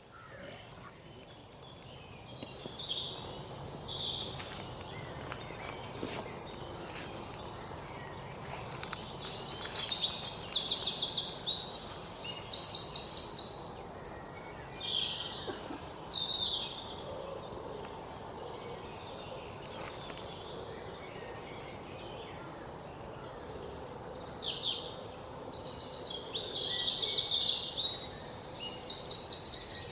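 Birds chirping and calling, with bursts of fast, high trills over a faint steady background. The trills are loudest about ten to thirteen seconds in and again near the end.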